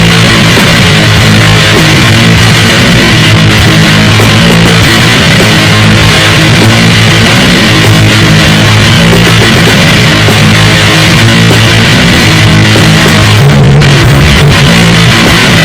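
Loud grindcore-noise music: a dense, unbroken wall of distorted guitar at a steady, very high level.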